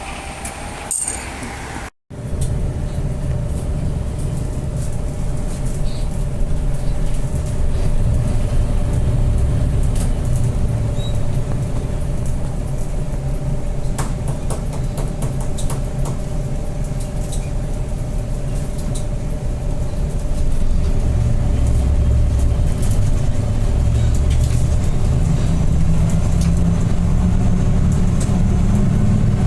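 Bus engine and road rumble heard inside the cabin of a moving route bus, with a steady drone. The engine pulls harder and its note rises about two-thirds of the way in, and again near the end.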